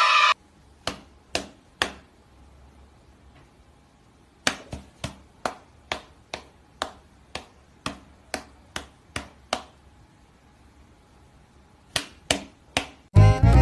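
Sharp slaps of a person's hand and a cat's paws batting at each other. Three quick ones come first, then a steady run of about a dozen at roughly two a second, then three more near the end.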